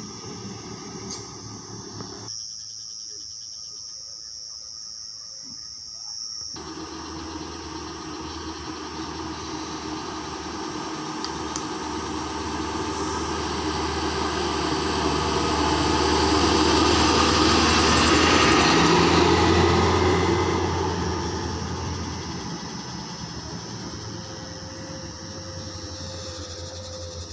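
Heavy diesel truck approaching and passing: its engine grows steadily louder to a peak about 18 seconds in, then fades away. Insects chirp faintly in the background.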